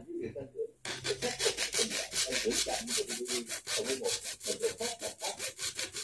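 Hand saw cutting into the edge of a car cabin air filter to trim it to size, with rapid, even back-and-forth strokes starting about a second in.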